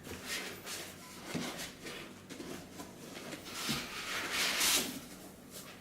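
Rustling and crinkling of packaging, with a few light knocks as parts are handled; the rustling is loudest about four to five seconds in.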